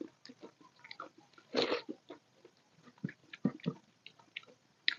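Close-miked wet chewing and lip smacks of someone eating soft dal khichdi, with squelching from fingers mixing the rice and lentils on a steel plate. Scattered short clicks, with a louder wet burst about a second and a half in.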